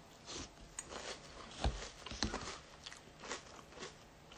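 Mouthful of crunchy cereal being chewed: a string of irregular crunches, the loudest a little under two seconds in.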